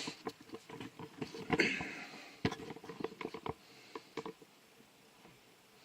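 Light knocks and clicks of handling at a workbench, a few a second, with a short hiss about a second and a half in; they die away after about four seconds.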